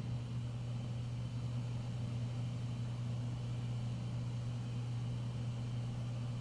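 A steady low hum with a faint hiss behind it, unchanging throughout; no music or voices.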